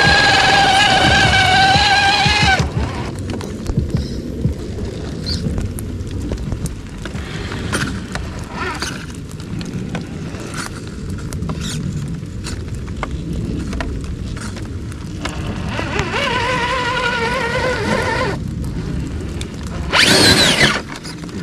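Brushless motor and drivetrain of a Traxxas TRX-4 RC crawler whining under load as it climbs, with a steady high whine for the first couple of seconds. Then the whine drops away and the tyres scrabble over mud, roots and twigs with scattered clicks. The whine returns briefly later, and a short loud burst of throttle comes near the end.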